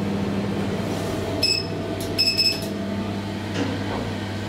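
Two short electronic beeps from a 2011 SMW machine-room-less traction elevator, a little under a second apart, over a steady low hum inside the car.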